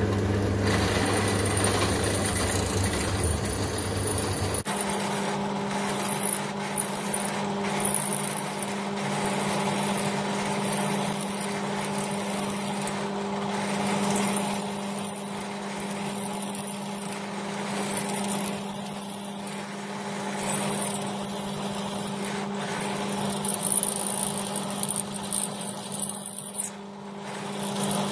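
Drill press motor running steadily while its bit drills into an aluminium clutch housing. From a few seconds in, a high-pitched cutting noise comes and goes.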